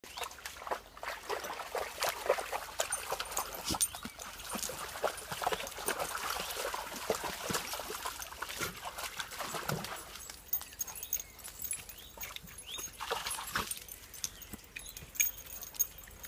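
Dogs wading and splashing through a shallow stream, with many quick splashes over running water. The splashing stops about ten seconds in, leaving only a few scattered short sounds.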